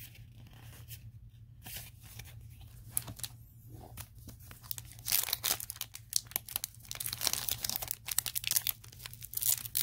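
Foil Yu-Gi-Oh booster pack wrapper crinkling and being torn open, with scattered rustles from cards being handled at first, then dense crackling from about five seconds in. A low steady hum runs underneath.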